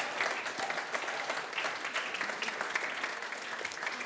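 Audience applauding steadily at the end of a talk.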